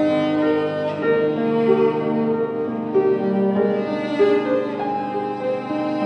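Instrumental background music with bowed strings: slow, held notes that change every second or so.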